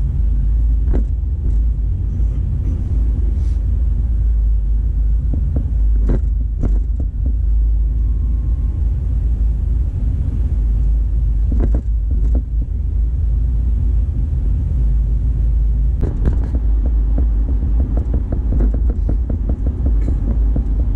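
Steady low rumble of a car's engine and tyres heard from inside the cabin, with a few brief knocks spread through it.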